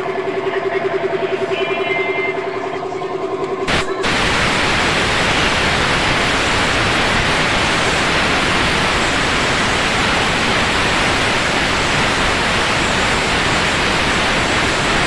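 Compressed-air paint spray gun spraying, a loud, steady hiss of air and atomised paint that starts with a click about four seconds in. Before it, a steady hum.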